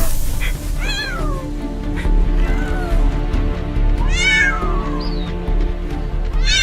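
A cat meowing several times, each call falling in pitch, the loudest about four seconds in, over steady background music.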